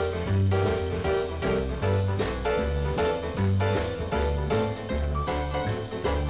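Yamaha grand piano played in a swinging jazz style: quick right-hand runs over steady low notes about two a second.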